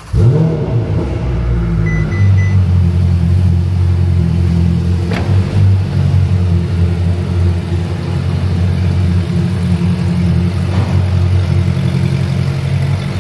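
Ferrari 488 Pista's twin-turbo V8, breathing through a Novitec aftermarket exhaust, comes in suddenly with a quick rise in revs and then runs loud and steady.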